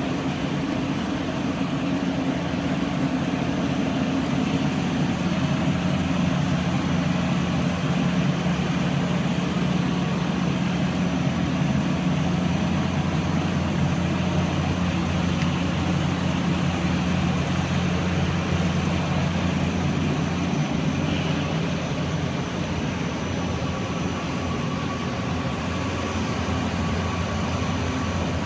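Steady low mechanical hum of running machinery, with two steady low-pitched tones under a constant wash of noise and no sudden knocks or changes.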